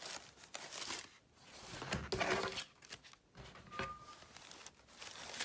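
Rustling and crinkling of a cotton t-shirt and the paper packaging in its box as they are handled, in a few short bursts, loudest about two seconds in.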